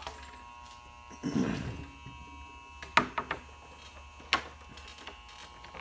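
A curved Lexan windshield being laid over the original windshield glass, making a brief rustle about a second in and then a few sharp knocks. A steady electrical buzz runs underneath.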